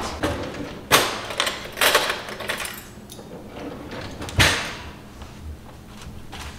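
Kitchen clatter: an oven door knocking shut about a second in, then more knocks and rattles of utensils being handled, the loudest about four seconds in.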